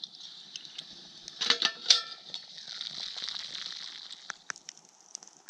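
Metal cookware clinking with a short ringing clank about a second and a half in, then a campfire hissing and crackling with scattered sharp pops.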